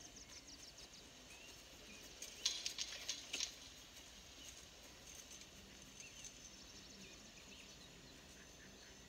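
Quiet outdoor ambience with birds chirping. About two and a half seconds in comes a short burst of crackling rustles and clicks.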